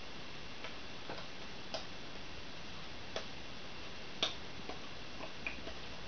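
About eight light, irregularly spaced clicks and taps over a steady hiss, the sharpest a little after four seconds in.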